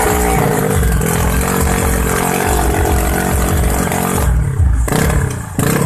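Yamaha Jupiter Z drag-bike engine, bored to 130 cc, running hard during a tune-up, with a steady engine note that eases off briefly and is revved back up about five seconds in and again near the end.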